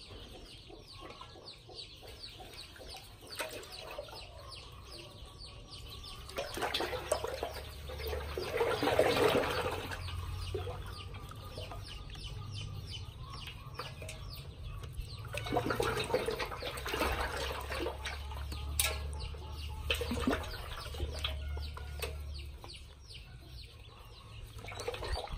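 A flock of ducklings peeping constantly while they paddle in shallow water in a metal basin. Water splashes and sloshes, loudest in two stretches, about a third of the way in and again just past the middle.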